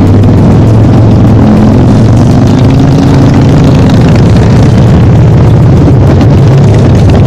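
Motorcycle engine running steadily while riding, under a loud rushing noise of wind and road.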